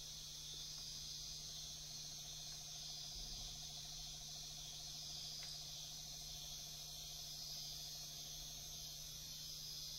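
Steady, high-pitched chorus of night insects, with a fainter, lower pulsed trill from about a second in until near the end and a low steady hum underneath.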